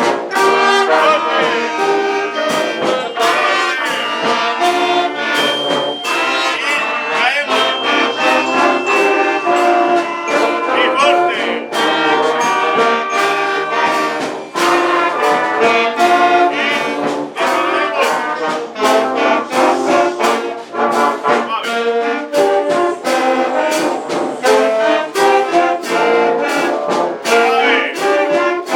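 A school brass band playing a tune in full, with trumpets and trombones carrying the melody and drums striking a steady beat.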